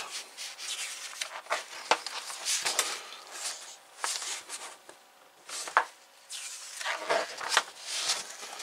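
Pages of a glossy paper magazine being turned and handled: a series of rustling swishes, with a sharp tap near the middle and louder rustling near the end.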